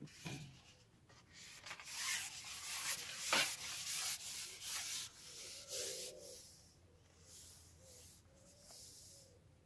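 Rustling and rubbing handling noise as a long fishing pole is gripped and moved, loudest from about two to six seconds in, with a softer burst near the end.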